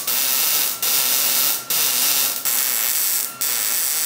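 Wire-feed welder arc on thin 14-gauge steel square tube, sounding in a string of short welds, each under a second, with brief breaks between. The joint is being laid bead by bead so the thin tube ends don't burn through.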